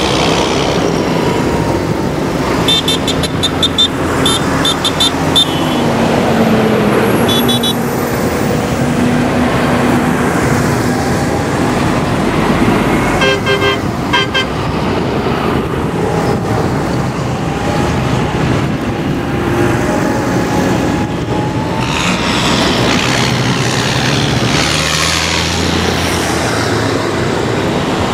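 Farm tractors driving past one after another, their diesel engines running with a shifting pitch and tyres on the road surface. Several short horn toots come in quick runs a few seconds in and again about halfway through.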